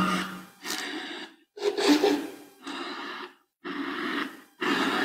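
Spirit box sweeping through radio stations: a run of short, choppy fragments of static and garbled voice, each cut off by a moment of dead silence, about six in all.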